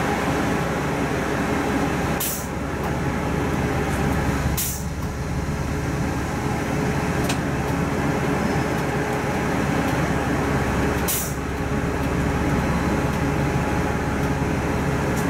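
Bus running on the move, its engine and road noise heard from inside the cabin, with three short hisses cutting through about two, four and a half and eleven seconds in.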